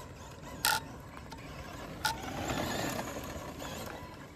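Traxxas Mudboss RC dirt oval car running on packed dirt: its electric drivetrain whirs and its tyres scrabble, swelling briefly in the middle as it powers on. Two sharp clicks are heard, one under a second in and one about two seconds in.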